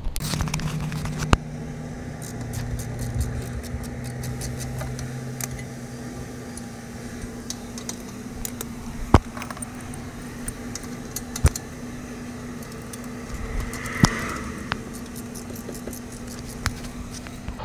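Hand wrench working on a BMW E36's front brake caliper bolts: rapid light clicking for the first several seconds and four sharp metal clinks of tool on metal, over a steady low hum.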